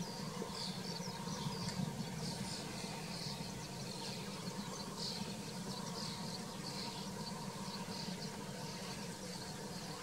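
Small birds chirping in short high notes, several a second, over a steady low hum.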